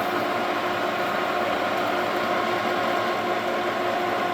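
1977 Takisawa Max 800 Deluxe gear-head engine lathe running under power on its 5 hp three-phase motor, an even hum with a steady whine from the headstock gearing.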